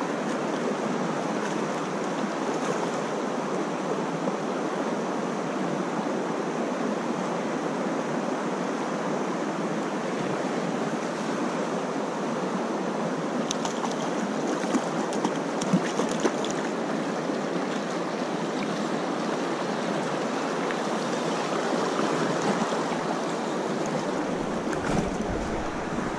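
Shallow river running steadily over a stony riffle, a constant rushing of water. About halfway through, a few brief splashes from a hooked grayling at the surface in the shallows.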